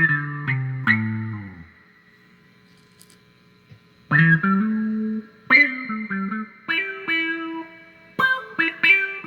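Electric guitar, a Squier Jazzmaster, played through a handmade envelope filter (auto-wah) pedal into a Roland JC-120 Jazz Chorus amp. A few notes step down in pitch and die away. After about two seconds of near quiet, picked chords and single notes start again.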